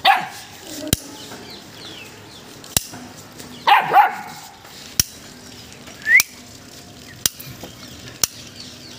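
Pit bull barking in short bursts: once at the start and twice in quick succession about four seconds in, with a short rising squeak a couple of seconds later. Sharp clicks sound every second or so throughout.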